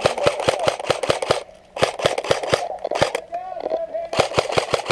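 Rapid crunching and rustling: quick sharp clicks about six or seven a second in three runs, with short pauses between them.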